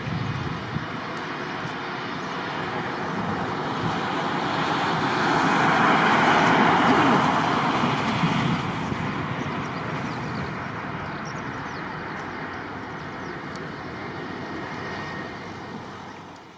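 Jet engine roar from an Airbus A330-300 airliner on takeoff, swelling to its loudest about six or seven seconds in and then slowly fading as it passes and climbs away.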